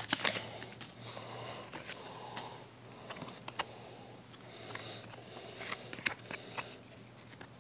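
Pokémon trading cards being handled and shuffled through: light rustling with scattered faint clicks as the cards slide and tap against each other. The foil booster pack crinkles for a moment at the very start.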